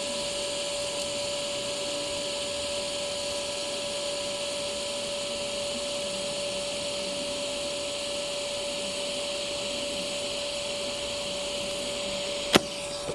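TIG welding arc from a Furius Flex 121 inverter welder in lift-TIG mode, burning steadily on carbon steel: an even hiss over a steady hum. A single sharp click near the end.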